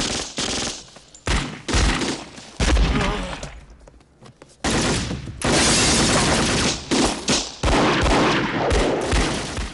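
Gunfire in a film street shootout: several separate shots in the first three seconds, a brief lull, then nearly continuous rapid fire from about five seconds in.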